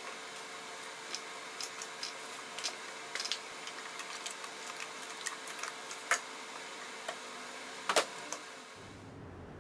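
Light clicks and taps as small first-aid items are set down and shifted on the plywood shelves of a wall-mounted pull-down cabinet, over a steady hiss. About eight seconds in, a loud double knock as the box is pushed back up and closes against its frame.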